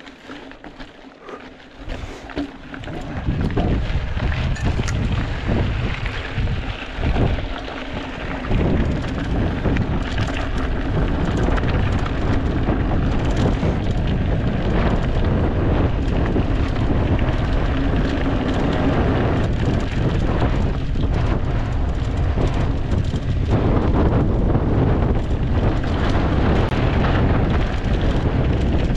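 Wind rumbling on the microphone and rolling noise from a mountain bike being ridden at speed. The roar is softer for the first three seconds, then steady and loud.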